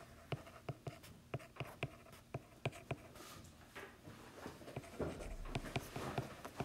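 Stylus writing on a tablet's glass screen: a run of short, sharp taps as the pen tip strikes and lifts with each stroke, coming thicker near the end.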